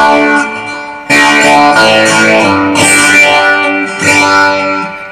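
Martin acoustic guitar strummed through its under-saddle piezo pickup and a small amp: a chord rings, then three more chords are strummed about a second and a half apart and left to ring. The pickup gives a hot, strong output.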